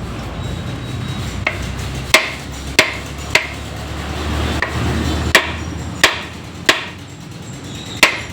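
Hammer blows on the metal parts of a truck gearbox being dismantled: about eight sharp strikes, each ringing briefly, a half-second to a second apart, over a low steady rumble that drops away partway through.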